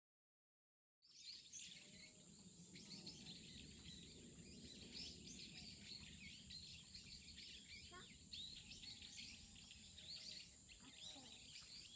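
Faint forest ambience of many small birds chirping, over a steady high insect drone, starting about a second in.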